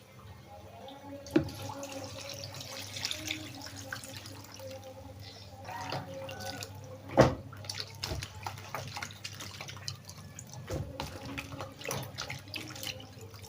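Water running and splashing at a sink, with scattered knocks and clatters; the loudest knock comes about seven seconds in.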